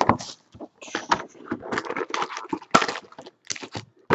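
Plastic shrink-wrap crinkling and tearing as a sealed box of Panini Prizm basketball cards is unwrapped and its wrapped packs are pulled out: a run of irregular crackles and rustles.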